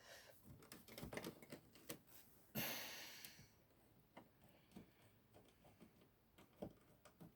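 Faint, scattered light clicks and taps of a screwdriver and screw being worked against an original Xbox's metal chassis and power supply, with a brief rustle about two and a half seconds in.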